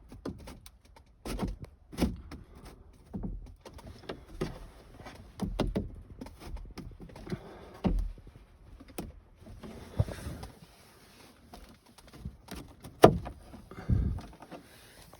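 Irregular knocks, clicks and scraping of plastic vent trim being pushed and worked into place along a car's sunroof panel, with a sharp knock about thirteen seconds in.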